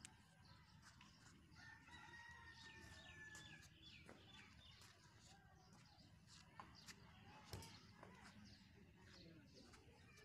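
Faint rooster crowing once, a single long call of about two seconds starting a little under two seconds in, with small birds chirping throughout. A single thump comes about seven and a half seconds in.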